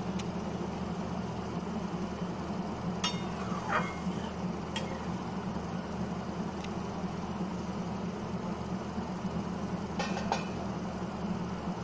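Steady low hum and rumble in the kitchen, with a few light clinks and a short scrape of a steel spatula against the steel pan of curry.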